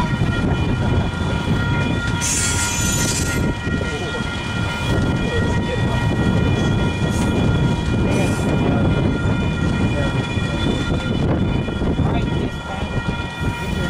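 Freight train passing close by with a steady heavy rumble, and several steady high-pitched tones ringing over it throughout. A brief hiss comes about two seconds in.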